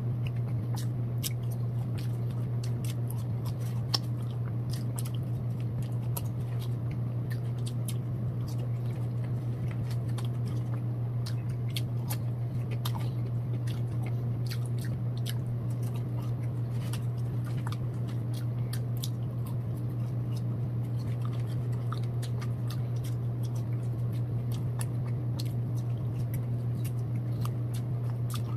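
A person chewing and biting McDonald's French fries, with many small mouth clicks throughout. A steady low hum runs underneath.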